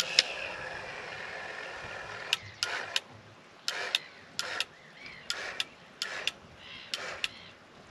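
Ryobi cordless caulking gun's motor running steadily as it pushes out a bead of white glue for about the first two seconds, then starting and stopping in a dozen or so short clicking bursts.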